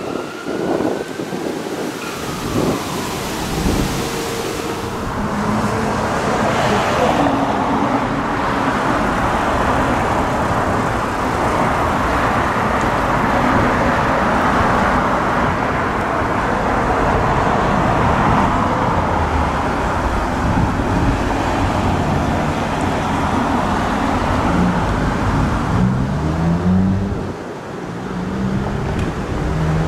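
Road traffic on the street, with cars driving past in a steady rush of tyre and engine noise. A siren's wail trails off in the first second.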